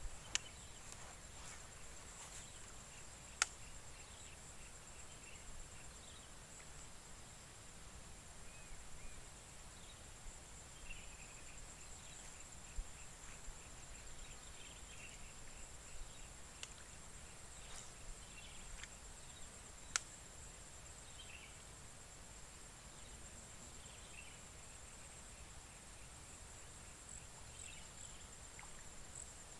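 Steady high-pitched insect drone with faint bird chirps scattered through it. A few sharp clicks cut in, the loudest about three seconds in and about twenty seconds in.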